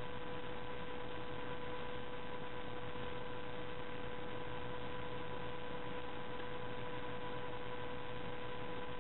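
Steady electrical hum: one constant mid-pitched tone with its overtones over an even hiss, unchanging throughout.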